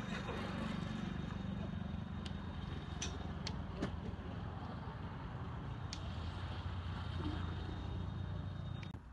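Low steady rumble of a running engine, like a nearby motor vehicle, with a thin steady high whine over it and a few faint clicks; it cuts off abruptly near the end.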